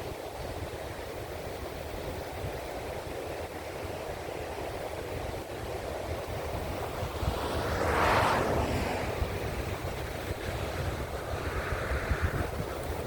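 Ocean surf washing on the shore, with wind rumbling on the microphone. A louder rush of surf swells and fades about eight seconds in, and a smaller one follows near the end.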